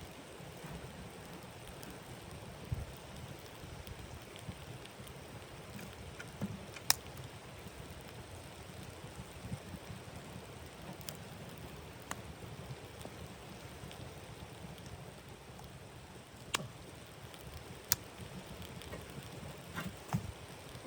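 Steady hiss of falling snow or sleet on tent fabric, with a few sharp, isolated cracks or ticks scattered through, the loudest about seven seconds in and again near the end.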